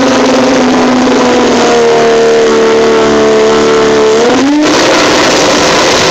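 Drag-race Toyota Celica's engine revving at the start line, held at steady high revs; the pitch steps up about two seconds in, then rises briefly and cuts off about four and a half seconds in.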